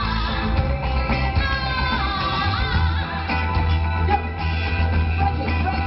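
Live band music: drums, bass guitar, electric guitar and keyboards playing a steady groove with a steady bass line, with a singer's voice gliding over it.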